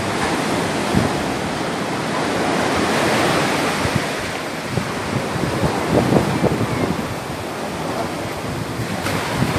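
Small waves breaking and washing up a sandy beach, a steady surf hiss that swells about three seconds in. Wind buffets the microphone in short gusts, most around the middle.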